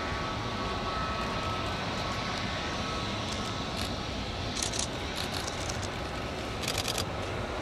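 Jet engines of an Airbus A321neo taxiing at low power, a steady rumble with a faint whine that fades in the first couple of seconds. Two short bursts of rapid clicks sound over it, about two-thirds of the way in and near the end.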